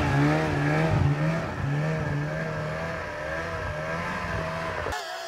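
Snowmobile engine running close by, its pitch wavering up and down with the throttle. About five seconds in the sound cuts to a thinner, fainter engine whine.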